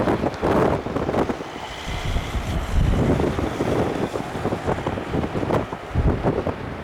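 Strong gusty wind buffeting the microphone in uneven low rumbling surges, with a faint high whine about two to four seconds in.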